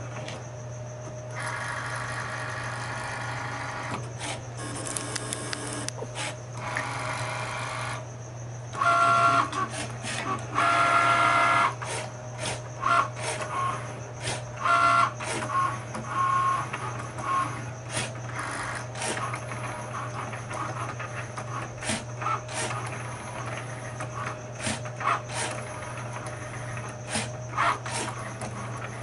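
Cricut Maker cutting machine working a pen-drawing job: its motors whine in short, irregular bursts as the carriage and mat rollers move, with frequent small clicks over a steady low hum.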